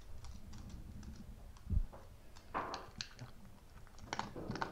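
Light, scattered clicking and tapping from small dogs moving about and playing, with one dull thump a little under two seconds in.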